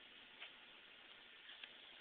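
Near silence: faint hiss with a few faint, irregularly spaced clicks, one about half a second in and two close together near the end.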